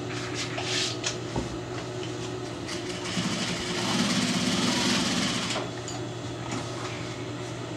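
Heavy drapery fabric rustling and sliding over the worktable as it is pulled out and handled, loudest for a couple of seconds starting about three seconds in, then stopping. A steady low hum runs underneath.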